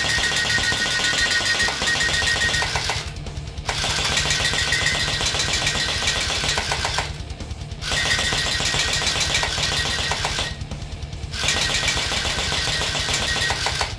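Electric hydrogel gel-blaster Glock firing on full auto with the trigger held: a rapid stream of clicking shots over a steady high whine. It fires in four bursts, with three short pauses of under a second between them.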